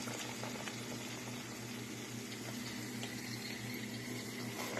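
Scone dough deep-frying in a pot of hot oil: a steady sizzling, bubbling crackle, with a low steady hum underneath and a light click near the end.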